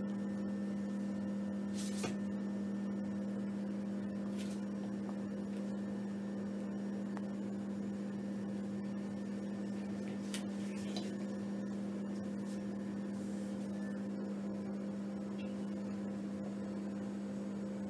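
Steady electrical hum, a low even tone with fainter overtones, with a few faint light clicks scattered through it.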